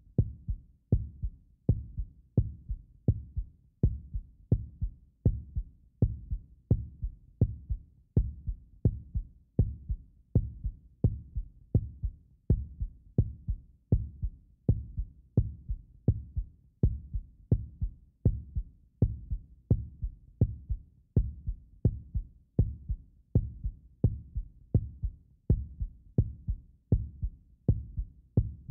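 Heartbeat sound effect: low double thumps repeating steadily, about once a second.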